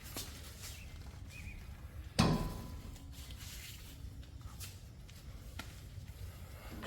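Heavy metal parts being handled: one loud metallic clunk with a short ring about two seconds in, amid a few light knocks and clicks.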